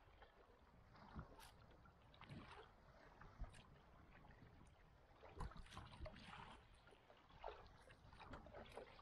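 Faint kayak paddle strokes: a soft splash and trickle of water as the blade dips and lifts, about one stroke every second, over a low wash of water.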